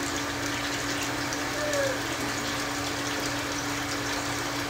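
A pot of stewed beans bubbling steadily at a boil on a gas burner, with a steady hum underneath.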